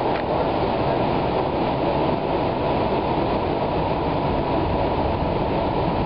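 Cleveland RTA Blue/Green Line light-rail car running along the track, a steady, even running noise heard from inside the car.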